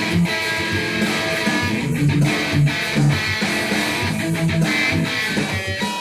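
Ibanez electric guitar played solo: an improvised riff of picked notes over repeating low notes.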